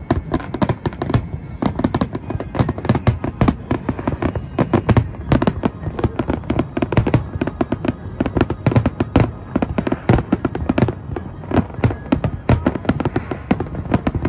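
Aerial fireworks display: a continuous barrage of shell bursts, bangs and crackle following one another several times a second with no pause.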